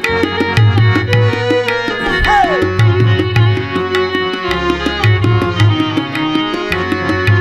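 Instrumental interlude of a Gujarati devotional song played over loudspeakers: a fast, even hand-drum beat with a deep drum pattern under held keyboard-like melody notes, and a falling pitch slide a little over two seconds in.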